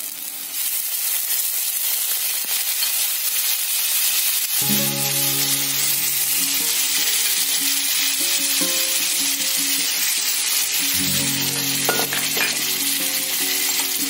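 Onion-spice masala sizzling in a hot kadai as water is poured in to start the curry gravy, a loud steady frying hiss that grows louder about half a second in. Background music comes in about four and a half seconds in.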